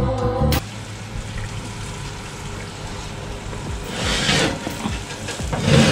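Brief guitar music that cuts off, then the steady hiss of the hot sauce sizzling in the baked chicken dish as it comes out of the oven, swelling louder twice near the end.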